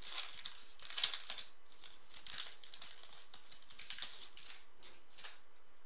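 Foil trading-card pack wrapper being torn open and crinkled by hand: a series of short crackling rustles about a second apart, dying away near the end.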